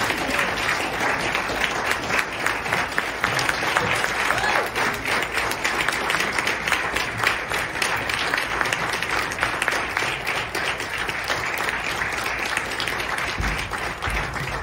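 Audience applauding, a dense steady clapping that eases a little near the end.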